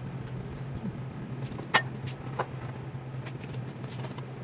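Sharp clicks and taps of food being handled in bowls at a dining table, the loudest about two seconds in, over a steady low hum.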